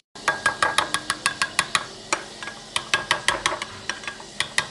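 Metal spoon beating egg yolk and yogurt in a glass bowl, clinking against the glass in a rapid, even rhythm of several strokes a second.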